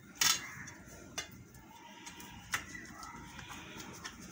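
Knife cutting through a steamed gram-flour slab and knocking against the steel plate beneath it: one sharp knock just after the start, then a couple of lighter clicks. A faint wavering pitched sound sits in the background through the second half.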